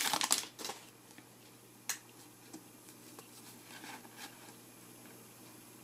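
Faint handling of trading cards and a foil booster-pack wrapper: a brief crinkle at the start, one sharp tick about two seconds in, then soft card rustles.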